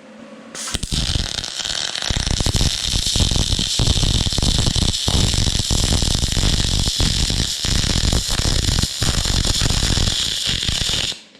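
Vulcan spool gun MIG welding aluminum: the arc strikes about half a second in and runs steadily with a loud, crackling hiss for about ten seconds, then cuts off abruptly near the end.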